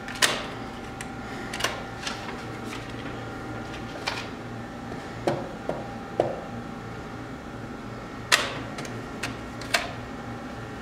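A Diebold ATM's card reader clicking and clunking as it takes in and reads an inserted card: about ten sharp mechanical clicks spread unevenly, the loudest near the start and about eight seconds in, over a steady hum.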